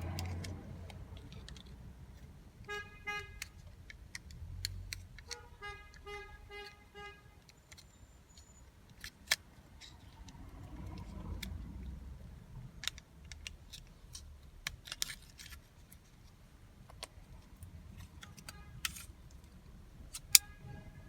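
BMW X3 remote key being handled, with many sharp plastic clicks and two short runs of electronic beeps about three and six seconds in.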